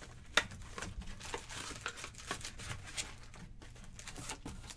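Foil booster packs crinkling and rustling as they are handled and lifted out of a cardboard booster box, with one sharp snap about half a second in.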